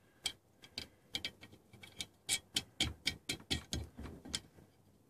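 Wing nuts being spun by hand onto the threaded studs of a sheet-metal crusher cover: a run of small, irregular metal clicks and ticks, several a second, stopping shortly before the end.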